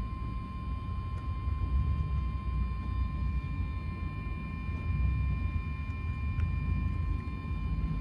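Steady low rumble of road traffic outside, with a faint, steady high-pitched whine over it.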